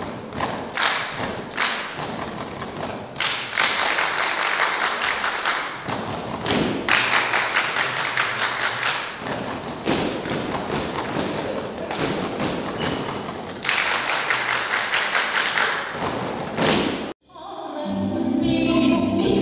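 A group of girls performing body percussion together: rhythmic hand clapping and foot stomping in quick, changing patterns. About 17 seconds in it cuts off abruptly and recorded music begins.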